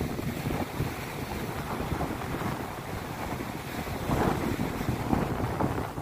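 Rough sea surf washing against a boulder jetty, with wind rumbling on the microphone. Two louder surges come near the end.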